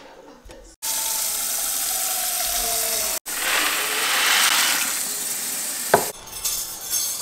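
Kitchen faucet running into a saucepan in a stainless steel sink, the water filling the pot while dry macaroni is poured in from its box. The sound breaks off for a moment near three seconds in, and a knock comes about six seconds in, after which it is quieter.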